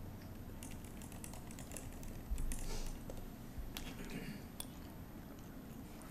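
Scattered light clicks of typing on a computer keyboard, with a low thump on a microphone a little over two seconds in.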